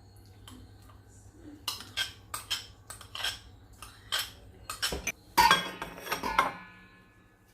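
A spoon clinking and knocking against a bowl while a yogurt-and-spice marinade is stirred. There is a string of sharp clinks, and the loudest comes about five and a half seconds in, ringing briefly, before the stirring stops.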